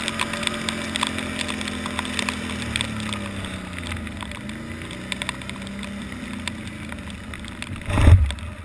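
Can-Am ATV engine running under way, its pitch dropping as the quad slows about halfway through and then rising again as it picks up speed, with scattered clicks over it. Near the end, a loud rustling thump as roadside branches sweep against the camera.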